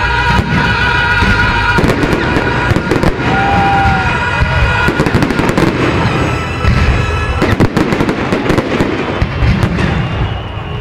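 Fireworks display: a dense run of bangs and crackling bursts, one after another.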